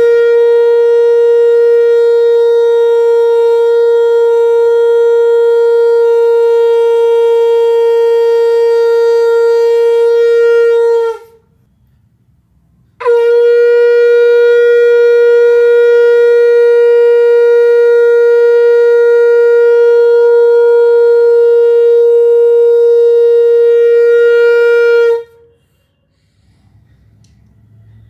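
Conch shell (shankh) blown in long, steady blasts on a single held note: one lasting about eleven seconds, a short pause, then another of about twelve seconds, with the next blast starting right at the end. The note sags slightly in pitch as each blast dies away.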